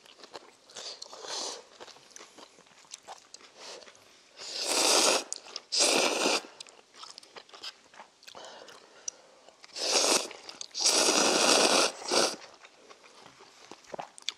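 Instant noodles being slurped loudly in several long, noisy slurps, two about a third of the way in and a longer run past the middle, with quieter chewing and mouth noises between.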